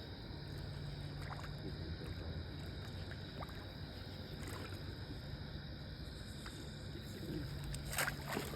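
Water moving at the river's edge under a steady low hum, with faint scattered ticks, as a hooked carp is brought in. Near the end comes a short, sharp splash.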